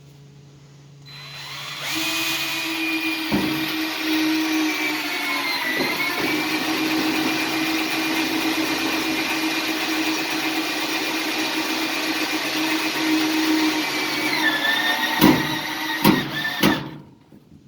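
Power drill running with a steady whine for about fifteen seconds. Its pitch dips briefly twice as it takes load, then it stops and is followed by a few sharp knocks.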